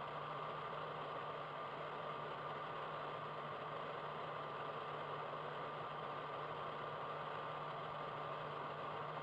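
Steady hiss and hum of an old film soundtrack, with a faint constant whine above it and nothing else happening.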